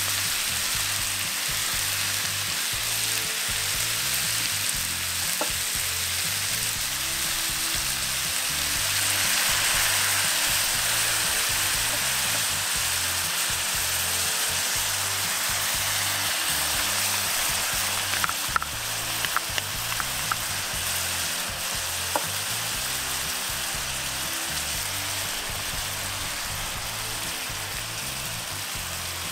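Chicken livers and onions frying in a cast-iron skillet: a steady sizzle that swells slightly about a third of the way in, with a few sharp pops of spattering fat a little past the middle.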